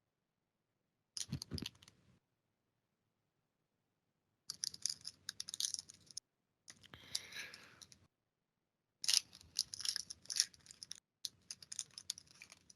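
Hockey trading cards being handled and flipped through in a pack, in five short bursts of clicking and rustling with silence between them.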